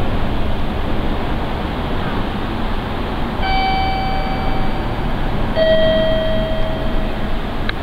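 A station chime on a railway platform: two clear ringing tones, a higher one and then a lower one, each ringing for about two seconds and fading, over a steady background hiss.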